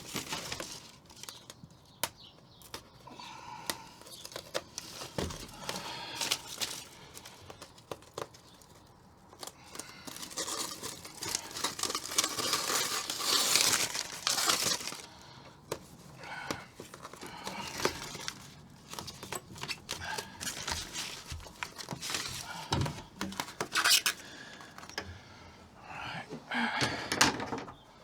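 Crinkling and tearing of sound-deadening sheet as its backing paper is peeled off and the sheet is handled, in irregular bursts with scattered sharp clicks and knocks.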